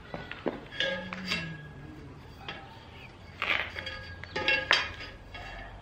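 Metal round bar clanking against threaded steel rods and a concrete lintel as it is set in place: several sharp knocks with a short metallic ring, about a second in and again in a cluster later on.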